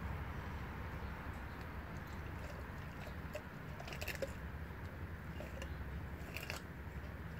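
Blue Bay Shepherd gnawing and crunching a frozen raw tilapia, with scattered crunches; the sharpest come about four seconds in and again about six and a half seconds in. A steady low rumble runs underneath.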